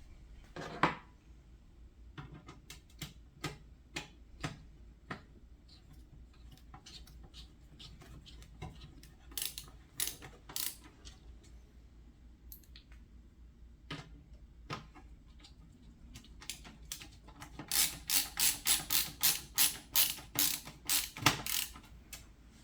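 Ratcheting screwdriver clicking as screws are driven into a PC case. There are scattered clicks, then a quicker run of about a dozen louder clicks near the end.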